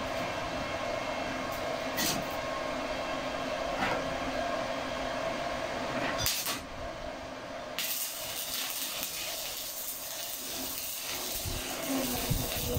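Stick (SMAW) welding: a steady hum and a few clicks, then about eight seconds in the arc strikes and settles into a continuous crackling hiss as the electrode burns along a flat plate.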